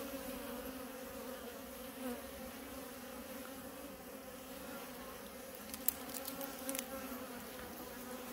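Honey bees buzzing over an open hive, a steady hum, with a couple of light clicks about six and seven seconds in.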